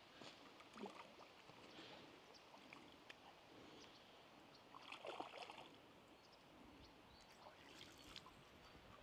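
Faint splashing of a small hooked catfish thrashing at the water surface as it is drawn in to the bank, the loudest splash about five seconds in.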